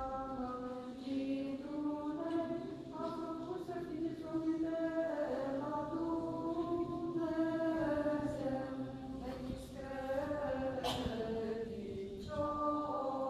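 Orthodox liturgical chant: unaccompanied voices singing long held, slowly moving lines. A short sharp click is heard near the end.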